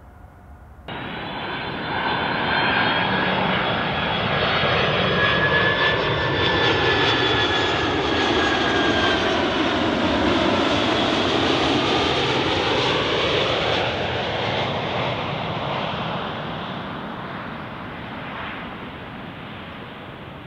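Boeing 767-400ER jet on landing approach passing overhead: steady, loud jet noise with a whine that slowly falls in pitch and a sweeping, phasing swoosh as it goes by. The noise comes in abruptly about a second in, holds for more than ten seconds and then fades slowly near the end.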